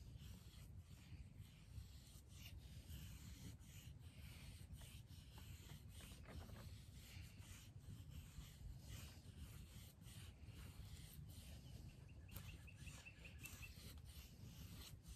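A Lionsteel M2M knife's M390 steel blade shaving curls down a wooden stick to make a feather stick: faint, repeated scraping strokes of steel on wood.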